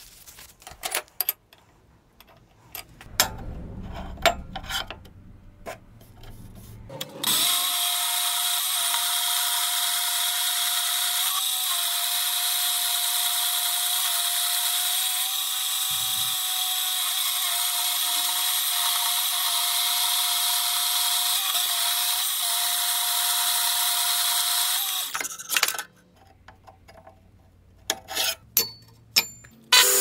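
Metal-cutting bandsaw running steadily with a high whine, starting about seven seconds in and stopping suddenly about five seconds before the end. Scattered clicks and rubbing of metal parts being handled come before and after it.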